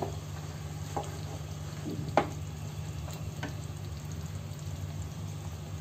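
Thick chicken curry simmering in a non-stick wok while a wooden spatula stirs it, knocking against the pan a few times, most sharply just after two seconds in. A steady low hum runs underneath.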